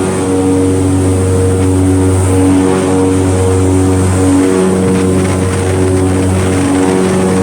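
Airboat's engine and air propeller running at speed: a loud, steady drone with a deep hum, its pitch wavering slightly now and then.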